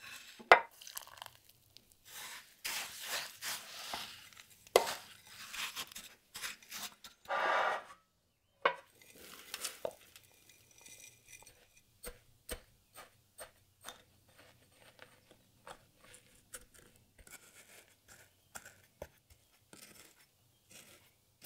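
Buttered biscuit crumbs stirred in a glass bowl, scraping and crunching. In the second half, a string of short light taps about twice a second as the crumb base is pressed into a stainless-steel cake ring with the back of a metal spoon.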